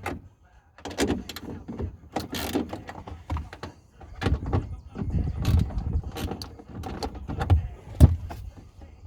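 Irregular clicks and knocks of an 8 mm socket wrench and hand tools working loose the tail light's mounting nuts, with the rattle of parts being handled.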